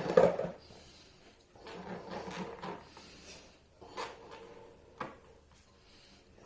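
Handling noises: rustling and scraping of materials being moved, with a couple of short, light knocks near the end.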